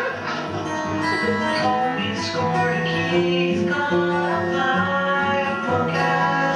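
Instrumental music played on plucked string instruments, with held notes that change every half second or so.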